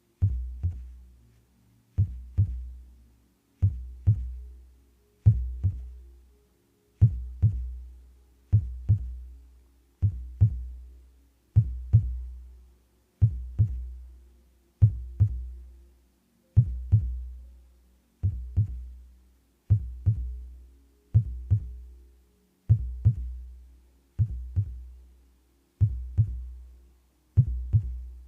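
Heartbeat: a slow, even lub-dub, two quick beats close together about every one and a half seconds, each pair followed by a low fading rumble. A faint steady hum lies underneath.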